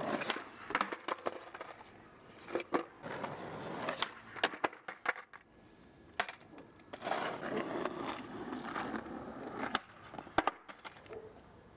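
Skateboard on asphalt during heelflip attempts: wheels rolling in spells, broken again and again by sharp pops of the tail and clacks of the board slapping down on the road.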